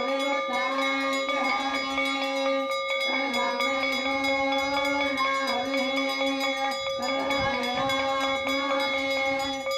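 Temple ritual music: a steady drone under a held low note that breaks off briefly about every four seconds, with a wavering, ornamented melody over it.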